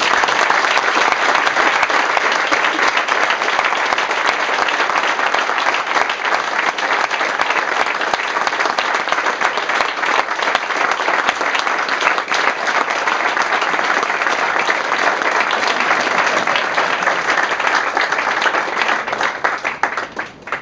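A crowd applauding: dense, steady clapping from many people that starts all at once and dies away near the end.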